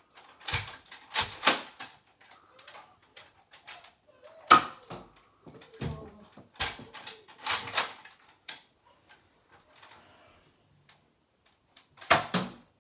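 Plastic Nerf dart blaster being primed and fired again and again: short groups of sharp plastic clacks from the priming slide and trigger, a few seconds apart.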